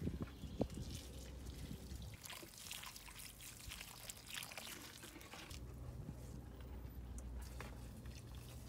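Liquid fertilizer pouring from a plastic watering can onto potting soil, the stream splashing and trickling into the soil. A couple of thumps near the start.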